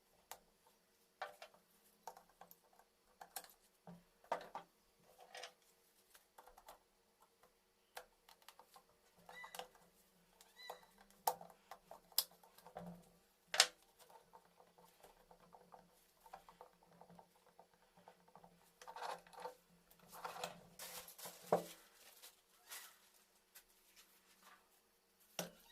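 Light, irregular clicks and taps of hand tools and small metal parts being handled during work on a small motorcycle engine, with one sharper click about halfway through and a short rustle later on.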